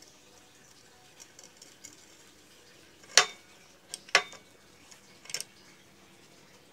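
Metal clinks and clanks from a cast-iron bench vise as its handle bar is worked and the screw turned: a few faint ticks, then four sharp clanks, the first the loudest.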